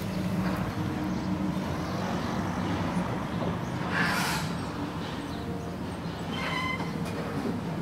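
A vehicle engine running with a steady low hum. About four seconds in there is a short hiss, and a brief high-pitched tone comes a little later.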